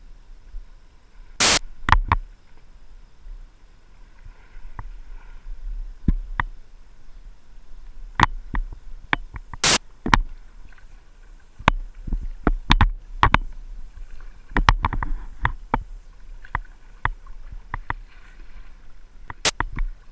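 A plastic whitewater kayak being paddled on flat water: irregular sharp knocks and clicks of the paddle and hull, with three much louder knocks, about a second and a half in, halfway through and near the end, over soft paddle-stroke splashing.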